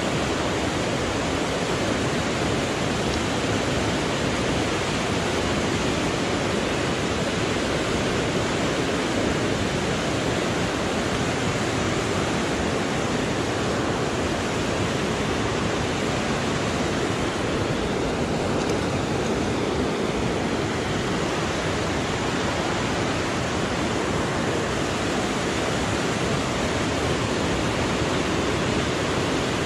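Steady rush of fast river water tumbling over rocks in rapids.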